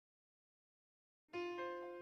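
Silence, then about 1.3 s in a piano starts playing the opening notes of a song intro: a sustained chord, with a new note added shortly after.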